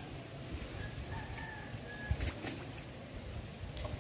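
A few brief splashes in shallow water as a fish caught in a gill net is handled and thrashes, the loudest a little over two seconds in. A faint bird call sounds in the background about a second in.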